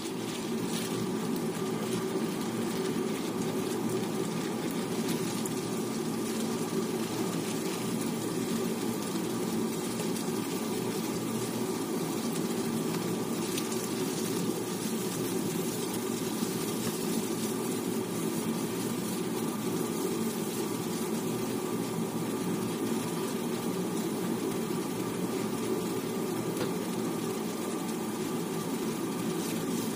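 Diced pork and mixed vegetables frying in a nonstick pan: a steady sizzle over a constant low hum.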